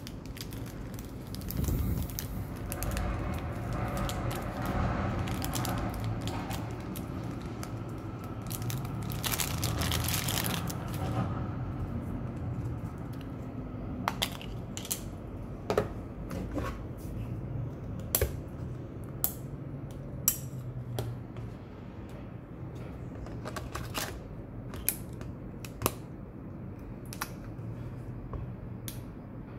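Handling a Canon EOS R camera body while fitting its battery: rustling and fumbling for about the first ten seconds, then a run of scattered sharp clicks.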